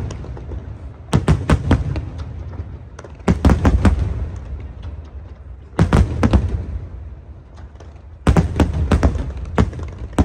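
Aerial fireworks going off in volleys: four quick runs of several sharp bangs each, about every two to two and a half seconds, with a low rumble carrying on between them.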